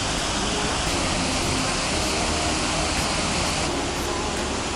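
Steady rushing noise that holds at one level throughout, with no distinct events.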